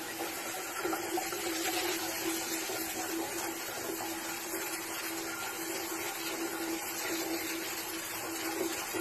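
Shower running, water spraying steadily onto a tiled floor.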